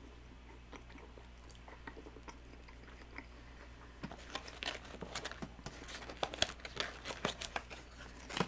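Close-miked chewing and biting on a McRib sandwich. It is faint and sparse at first, then a dense run of irregular mouth clicks and crunches from about four seconds in.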